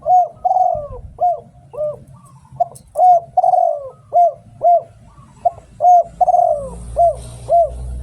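Spotted dove cooing: three repeated phrases of about five deep coo notes each, with a longer drawn-out note in each phrase. A low rumble comes in near the end.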